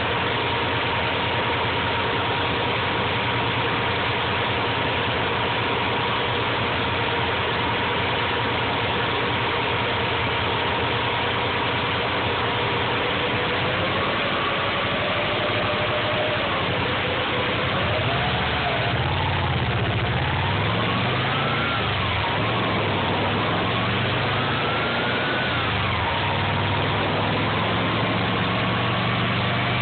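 Subaru EJ22 flat-four engine idling steadily with a thin whine on top. About halfway through, the revs climb and fall unevenly a few times, then settle at a slightly higher idle.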